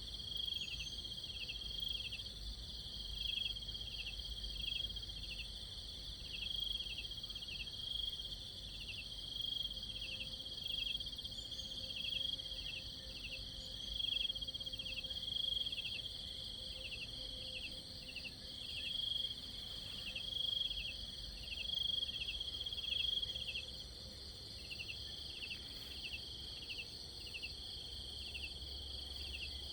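Insects trilling steadily in a high, continuous chorus, with a short chirp repeating about twice a second.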